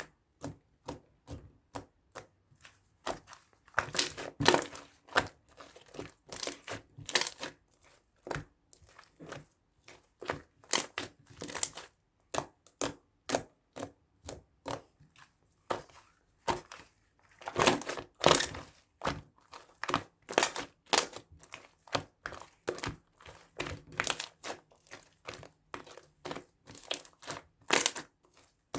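Close crinkling and crunching: many short, irregular crackles, with denser, louder clusters about four seconds in and again past the middle.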